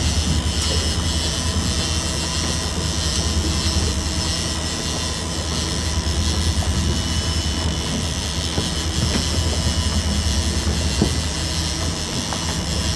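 Steady low drone of a fishing boat's engine running, with a hiss of wind and water over it.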